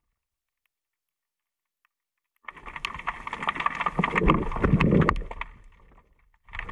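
Muffled underwater noise of a diver moving along a rock ledge, with scattered clicks and knocks, heard through an underwater camera's housing. It is silent for the first two seconds or so, then comes in for about three seconds and cuts out, and starts again just at the end.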